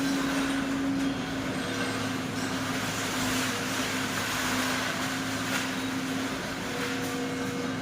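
Excavator running steadily, its engine and hydraulics giving a continuous mechanical noise with a steady hum.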